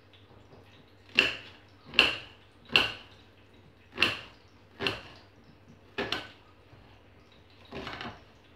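Kitchen knife cutting vegetables on a ceramic plate: six sharp clicks of the blade meeting the plate, roughly one every 0.8 seconds, then a softer, longer sound near the end.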